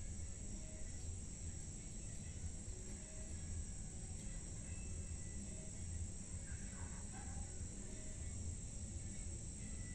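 Outdoor ambience: a steady high-pitched drone of insects over a low rumble, with a brief faint chirp about seven seconds in.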